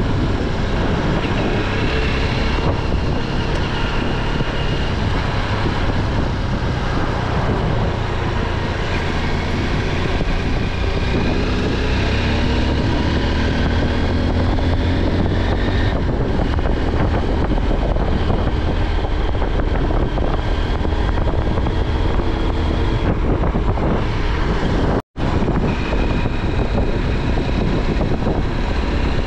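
Motorcycle on the move: the engine runs under steady wind noise on the microphone, and its pitch rises and falls a little partway through. The sound cuts out for an instant about 25 seconds in.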